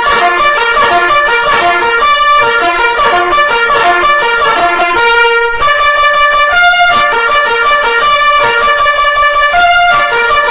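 Loud electronic emergency-alert jingle: a fast melody of plucked, guitar-like notes with brassy, trumpet-like tones, repeating its phrase.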